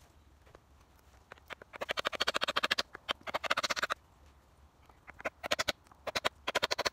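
Rapid, rasping squeaks of wood being bored with a hand-driven drill worked by a back-and-forth stick, in two runs of fast strokes, the second broken into short bursts.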